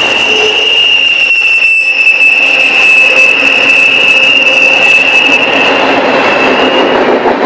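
Steel wheels of double-stack intermodal well cars on a passing freight train, giving off a steady, high-pitched wheel squeal over the rumble of the cars rolling by. The squeal dies away near the end.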